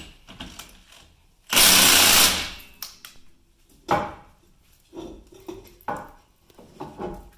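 A power impact wrench hammers for about a second, loosening the big 35 mm axle nut on the truck's front wheel hub. Several short metallic clanks follow as the socket and nut are handled.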